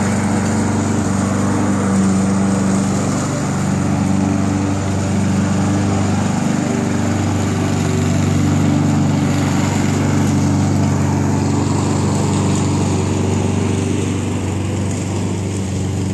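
Walk-behind gasoline lawn mower engine running steadily under load while cutting grass.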